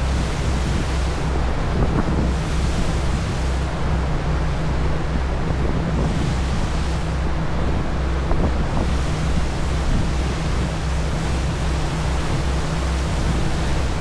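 Passenger ferry under way: a steady low engine drone under the rushing wash of the wake, with wind buffeting the microphone in gusts that swell and fade several times.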